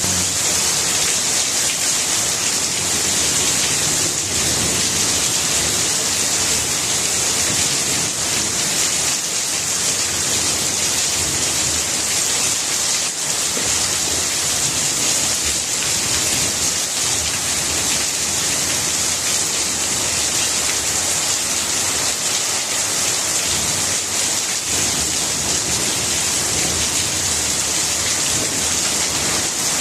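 Steady rain falling on plants: an even, unbroken hiss of many drops.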